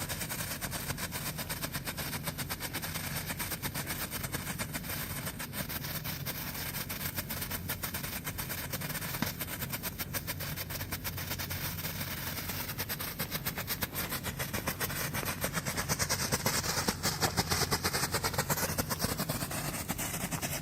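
Silver strobe firework going off as a steady, rapid crackle of small pops, many a second, a little louder and hissier near the end.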